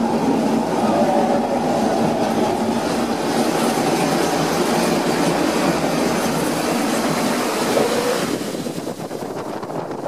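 Log flume boat riding the lift conveyor with a steady clattering rattle. About eight seconds in the clatter falls away into a rushing hiss of wind and water as the boat starts down the drop.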